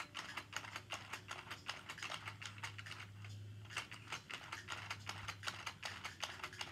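Rapid, irregular plastic clicks and taps of a Chubby Puppies toy playset and puppy figure being handled and fitted together, over a faint low steady hum.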